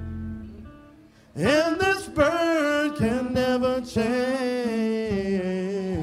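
Live band music with guitar: a held chord fades almost away, then a little over a second in a lead line comes in loud, its first note sliding up and then held with vibrato over sustained chords.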